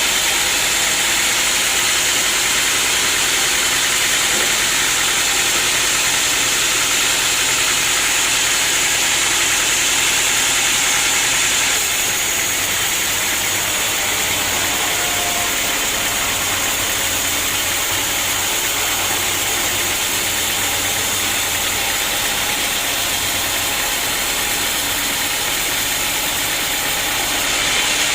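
Sawmill machinery running steadily, a loud continuous mechanical noise with a hissing top. The level dips slightly about twelve seconds in and comes back up near the end.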